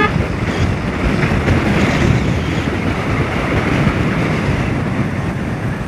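Steady wind rush buffeting the microphone of a motorcycle riding at speed, with the bike's engine and road noise beneath it.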